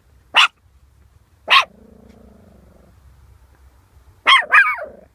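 Small Pekingese dog barking: two single high, sharp yaps about a second apart, then a quick pair of barks near the end.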